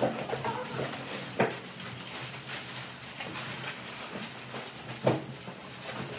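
Red plastic gift bags rustling and cardboard boxes being handled while items are packed, with two sharp knocks, about a second and a half in and again near five seconds.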